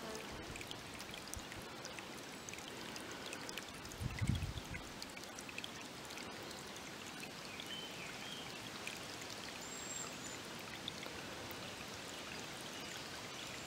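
Faint, steady trickling of water, with one low bump about four seconds in.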